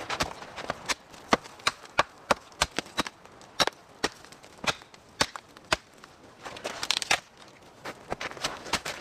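A string of sharp, irregular knocks and cracks of wood being worked by hand, a few to the second, with a brief rustle about seven seconds in.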